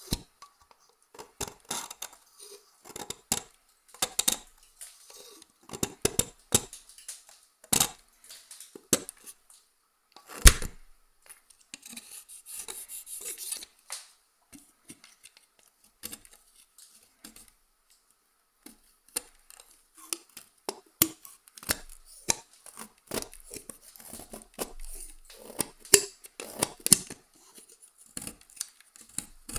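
A steel blade cutting, chopping and scraping a crumbly orange stick clamped in a vise: a long run of sharp cracks and crunches, with gritty scraping and crumbling between them. The loudest crack comes about a third of the way in, and there is a short quiet pause just past the middle.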